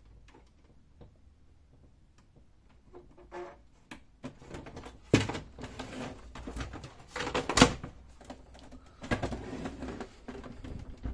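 Plastic clicks and knocks as the scanner unit of a Brother DCP-1512 printer-copier is lowered and fitted back into place on the machine's body, with sharp knocks about five and seven and a half seconds in and a quicker run of handling clatter near the end.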